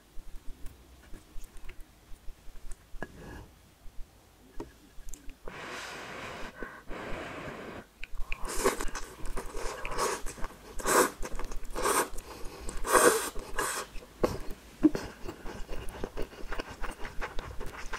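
Close-miked eating of noodles and fishballs: after a few quiet seconds, a steady slurp lasting about two seconds, then repeated chewing strokes about once a second.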